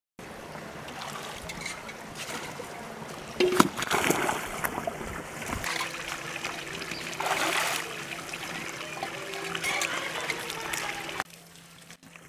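Water sloshing and splashing in a washing tank as a rug is pushed and worked under the surface with a wooden pole, in uneven surges with the loudest splash a few seconds in. The splashing stops abruptly near the end.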